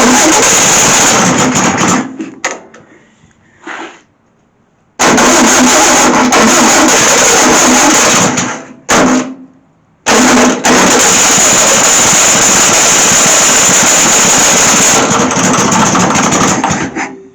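Starter motor cranking a Volkswagen Beetle's air-cooled flat-four engine, jumped straight at the starter with the choke on. It comes in three long bursts of about two, three and seven seconds, and the engine does not catch and run.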